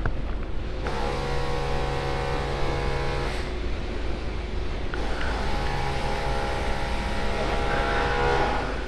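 Voge 300 Rally motorcycle engine running while riding off at low speed, with a low rumble throughout. A steady whine comes in twice, for a few seconds each time.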